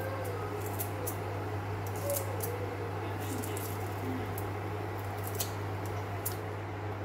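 Kitchen scissors snipping fresh parsley: about a dozen quick, irregular snips over a steady low hum.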